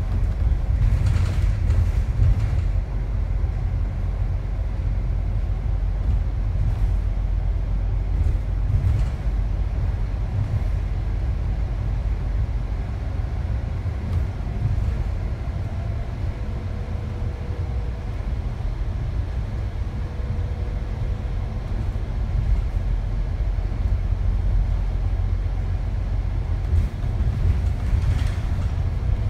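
Steady low rumble of a bus's engine and tyres on the road, heard from inside the moving double-decker bus, with a few brief knocks near the start and the end.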